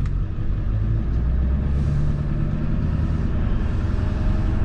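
Cab interior of a 2001 Ford F250 pickup pulling away: steady low engine and drivetrain rumble, a little stronger from about a second in, on a driveshaft freshly fitted with new U-joints.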